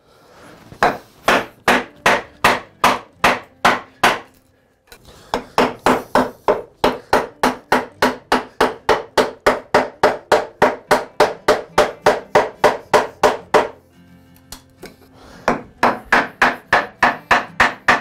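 Wooden mallet driving a bench chisel into the laminated wood of a workbench, chopping out a recess: steady blows about three a second, in three runs with short pauses at about four seconds and fourteen seconds in.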